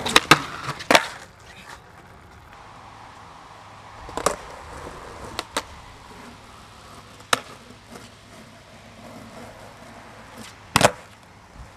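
Skateboard on concrete: wheels rolling, then sharp wooden clacks as the board pops and lands, several close together in the first second, scattered single clacks after, and the loudest one near the end.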